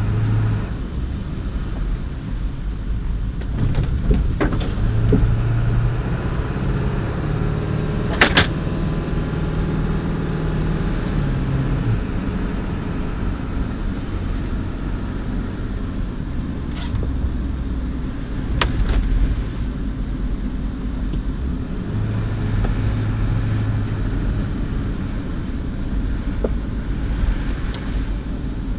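Engine and road noise from inside a moving vehicle, with the engine note stepping up and down. A sharp click comes about eight seconds in, and a couple of fainter clicks come later.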